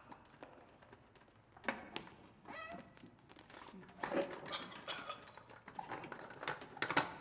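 Irregular knocks, clicks and rustles from an acoustic guitar and a microphone stand being handled, loudest about four seconds in and again near the end.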